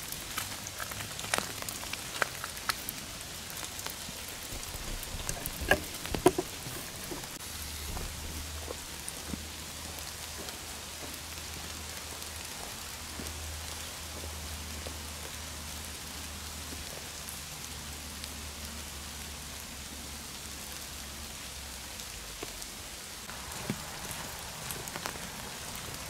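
Steady rain falling on forest foliage, an even hiss, with scattered sharp taps in the first several seconds.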